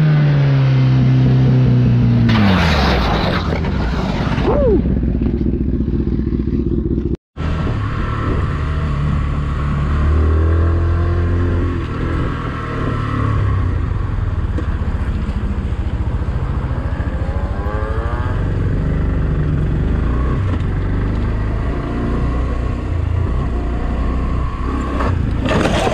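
Onboard sound of sport motorcycles being ridden, with wind and road noise. At the start the engine note falls steadily as the rider rolls off. After a short break, a second bike runs fairly steadily with a few brief rises in revs.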